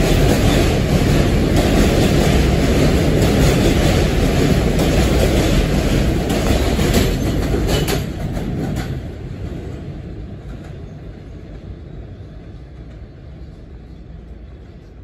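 R160 subway train with Siemens propulsion pulling out of the station. Its cars roll close by with wheels clattering over rail joints for about eight seconds, then the sound fades steadily as the train moves away down the track.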